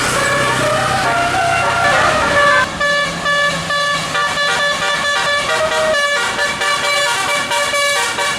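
Bus telolet multi-note musical air horn playing a fast tune of short notes, changing to a quicker run of notes about two and a half seconds in. A low engine hum sits under the first part.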